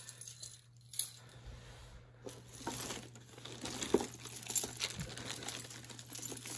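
Costume jewelry being handled and sorted: beads and small metal pieces clicking and clinking against each other in a string of light taps, sparse at first and busier after about three seconds, with some crinkling.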